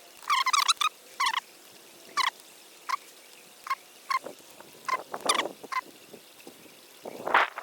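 A bird calling in a series of short, high, sharp notes at irregular intervals, with a longer, louder call near the end.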